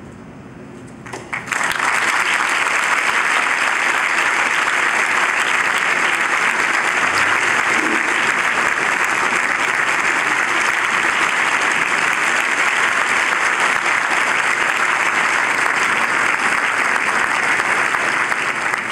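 The orchestra's last chord dies away, then audience applause breaks out about a second and a half in: a few first claps, then steady clapping from the whole hall.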